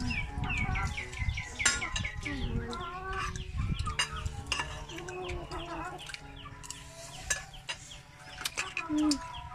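Chickens clucking, with a quick run of short, high, falling peeps in the first two seconds. A spoon clinks now and then against dishes.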